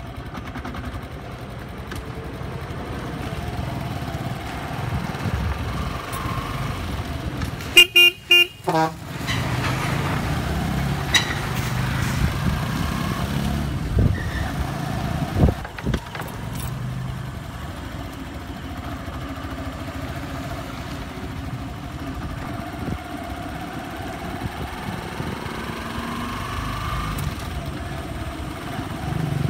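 Road traffic with a motorcycle engine running steadily, its pitch slowly rising and falling. About eight seconds in, a vehicle horn gives a quick series of short toots, the loudest sound, and two sharp knocks come a few seconds later.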